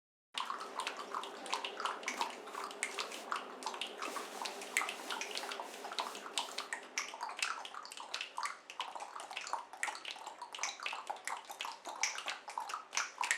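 Water being splashed and sloshed in a tub or basin: a dense, irregular run of small splashes at an even level.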